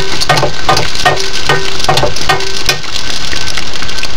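Stuffed pizza dough deep-frying in hot oil in an enamel pan: a loud, dense crackling sizzle full of tiny pops.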